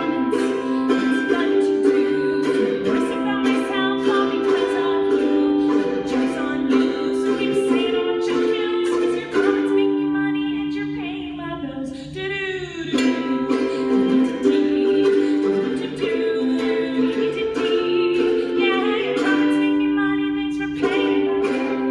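A woman singing into a microphone while strumming a ukulele, with long held notes and a short break in the phrase about halfway through.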